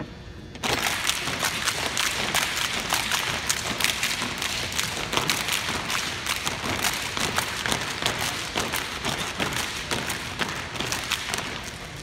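Step team stomping and clapping in unison: a dense run of stomps and hand claps that starts abruptly just under a second in and keeps going.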